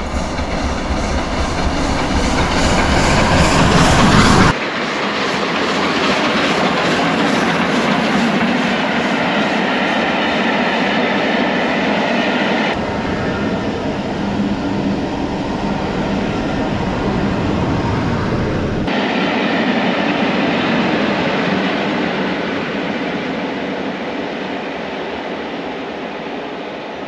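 Steam-hauled passenger train passing: the LNER A3 Pacific Flying Scotsman coming up, then its coaches rolling by with wheels clattering over the rails. The sound builds to its loudest about four seconds in, stays loud as the coaches pass, and slowly fades near the end as the train draws away.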